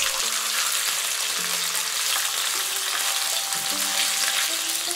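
Marinated chicken strips sizzling steadily in hot oil in a non-stick wok while a spatula turns the pieces over.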